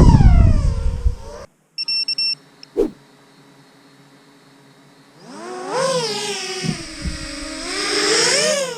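7-inch FPV quadcopter's Brotherhobby 2808 motors and Gemfan 7040 props whining past close, falling in pitch with a heavy rumble, then cutting off about a second and a half in. A short electronic beep follows, then near quiet, before the motor whine builds again from about five seconds in, rising and falling in pitch and loudest near the end.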